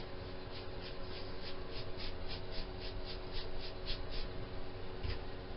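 Paintbrush dry-brushing chalk paint onto a wooden bench top along the grain: quick back-and-forth scratchy strokes, about three or four a second, that stop about four seconds in. A steady low hum runs underneath.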